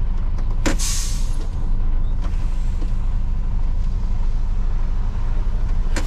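Lorry's diesel engine running steadily, heard from inside the cab, with a short hiss of released air from the air brakes about a second in and another near the end.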